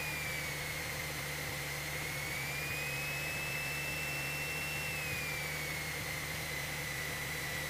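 Cessna 172 cabin noise on final approach: a steady engine and propeller drone with a high whine on top. The whine dips in pitch at the start, rises about two seconds in, and falls again about five seconds in, following changes in engine speed.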